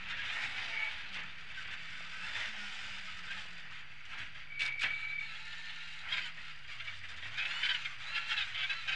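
Rally car engine and tyre and road noise on snow heard from inside the cabin, the engine note wavering, then dropping about seven seconds in and climbing again as the car slows for a right-angle corner. A short sharp click with a brief beep about halfway through.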